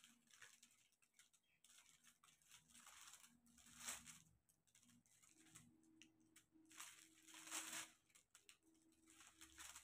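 Faint small taps and crinkles of a diamond-painting drill pen picking up resin drills and pressing them onto the sticky canvas, with plastic film rustling; two louder rustles come about four and seven seconds in. A faint steady low hum lies underneath.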